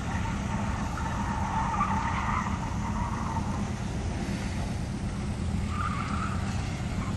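Mazdaspeed3's turbocharged 2.3-litre four-cylinder engine running hard in the distance as the car is driven through an autocross course. The tires squeal through corners from about a second in, and again around six seconds.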